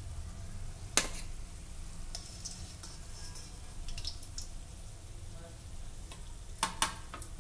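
Donuts frying in hot oil in a steel pan, a faint sizzling crackle, while a steel spoon lifts one out: the spoon clinks sharply against the pan once about a second in and twice in quick succession near the end.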